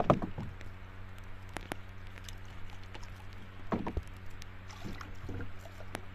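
Gill net being hauled by hand out of the water over the side of a wooden boat: water splashing and dripping off the net and tangled weeds, loudest right at the start, with a few short knocks, over a steady low hum.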